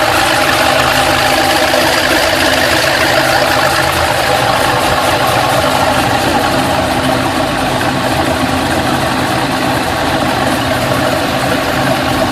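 LS2 V8 idling steadily, with a ticking that appeared after a cylinder head, camshaft and intake swap.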